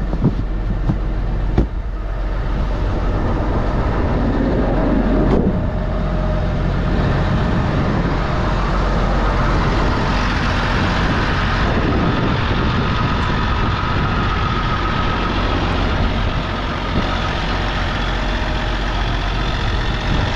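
Steady diesel engine running. For most of it, this is a Case IH Steiger 9350 articulated four-wheel-drive tractor pulling a cultivator across a field.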